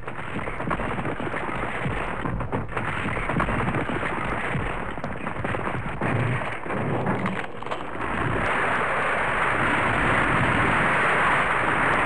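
Earthquake sound effect: a steady, dense rushing noise thick with small crackles, a little louder from about eight seconds in.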